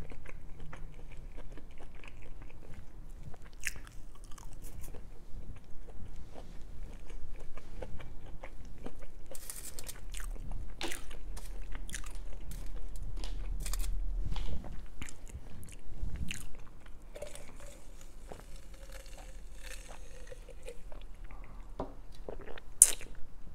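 Close-miked chewing of crispy vegan chicken tender and baked crinkle fries, with many sharp crunches, thickest in the middle, and softer wet chewing between them.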